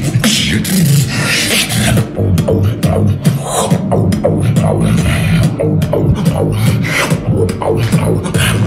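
Beatboxer performing with the mouth alone: a constant deep bass line under a fast stream of sharp clicks, kick-drum thumps and hissing snare and hi-hat sounds.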